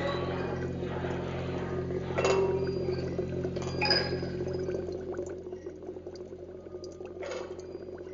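Sound installation playing a steady low hum that fades out about halfway through. Over it come three clinking, glassy strikes, each ringing briefly.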